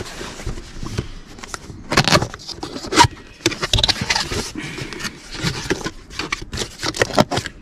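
A cardboard box being opened by hand: flaps scraping, folding and tapping in irregular bursts, with a couple of sharper knocks about two and three seconds in. Near the end, the plastic wrapping inside rustles.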